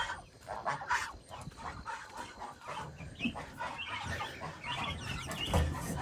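Chickens clucking, a scatter of short calls.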